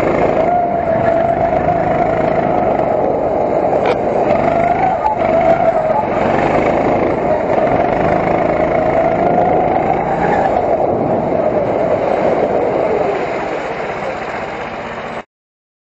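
Go-kart engine running hard, heard from on board, its pitch rising and falling as the kart accelerates and lifts through the corners. It gets quieter over the last couple of seconds and cuts off suddenly near the end.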